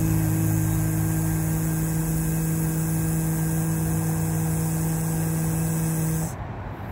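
A man's voice buzzing one steady, low note in vocal toning, held for about six seconds and cutting off near the end.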